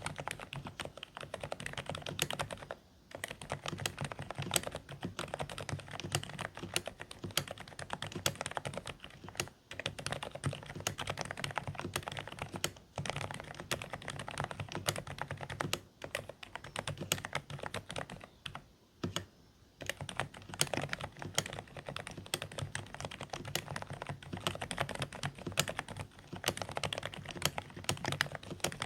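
Fast continuous typing on a Dareu A104 Pro mechanical keyboard with silent beige switches: a dense patter of muffled keystrokes, broken by short pauses a few times.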